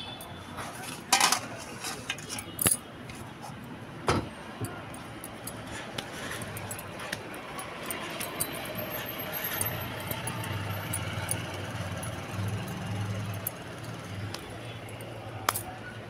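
Kitchen handling noise: a few sharp metallic clinks and knocks in the first four seconds and another near the end, over a faint steady hum.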